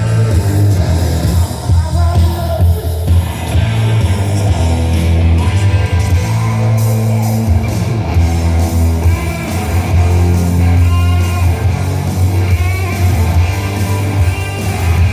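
Rock music with electric guitar and singing, played loud through car audio speakers with heavy bass.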